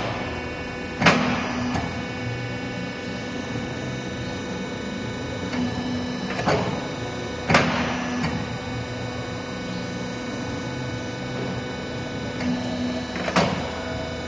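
Ridge tile forming machine running with a steady motor hum, broken by sharp metallic clanks: one about a second in, two close together around six and a half and seven and a half seconds, and another near the end.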